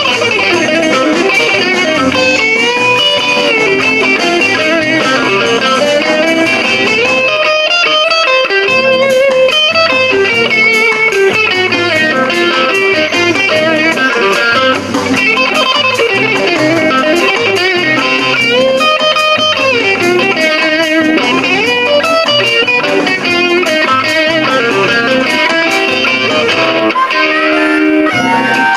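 Blues instrumental break on a Telecaster-style electric guitar played through a small amplifier, with a harmonica wailing bent notes over it.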